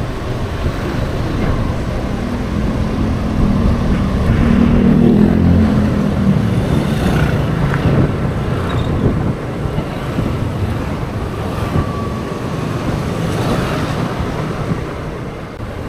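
Suzuki Burgman Street 125 EX scooter's single-cylinder engine running under way at low speed, mixed with wind and road noise. It grows louder between about three and six seconds in as the scooter speeds up, then settles.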